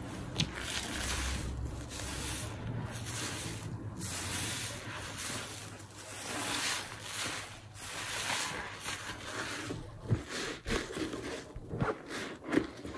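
Soapy kitchen sponges being squeezed and squished by gloved hands in a tub of thick suds: wet squelching and fizzing foam in repeated swells, with sharper wet pops and clicks over the last few seconds.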